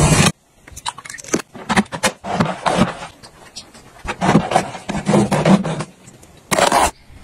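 A blade slitting packing tape on a cardboard box with a short loud rasp at the start, then a run of irregular swishing and scraping strokes from a flat mop pushed over a tiled floor and worked in its bucket. One more loud scrape comes near the end.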